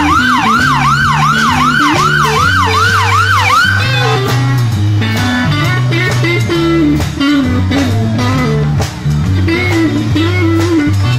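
Live band music with electric guitar, bass notes and a steady beat. For the first four seconds an emergency-vehicle siren wails over it in a fast yelp, about three rises and falls a second, then stops.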